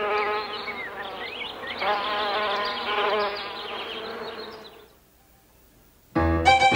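Insect buzzing: several droning tones wavering together, with small rising and falling glides above them, fading out about five seconds in. A loud musical chord comes in suddenly near the end.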